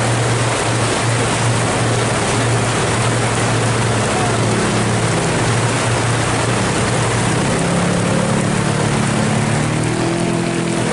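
Heavy rain pouring steadily, with the engines of passing motorcycles and cars running under it. A steady low engine drone holds through the first part, then higher engine notes rise and shift from about seven seconds in.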